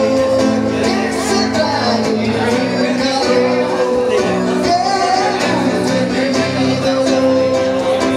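A man singing with his own acoustic guitar accompaniment, holding long notes over steadily played chords.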